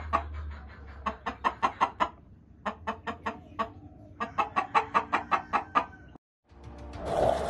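Chicken clucking in quick runs of short clucks, about six or seven a second, with pauses between the runs. Near the end the clucking stops and music comes in.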